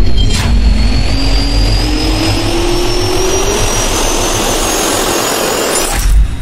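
Logo-intro sound effect of a jet turbine spooling up: a deep rumble and rushing air under a whine that rises steadily in pitch, with a sharp hit about half a second in and another near the end.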